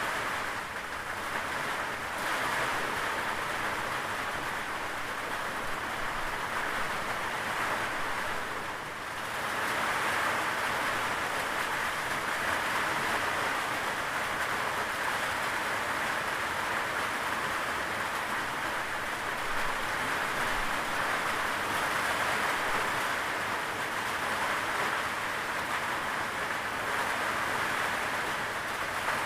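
Steady rainfall, an even hiss of rain that dips briefly about nine seconds in.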